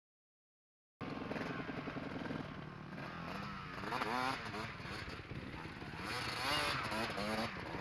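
Dirt bike engine running, heard from a camera mounted on the bike, starting abruptly about a second in; the engine pitch rises and falls as the throttle is worked.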